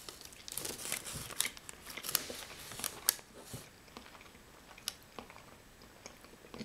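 Baking paper crinkling and rustling as a spoon works a piece out of a soft apple sponge cake, with dense crackles for the first three seconds or so. Then quieter, sparse clicks of a person chewing the bite.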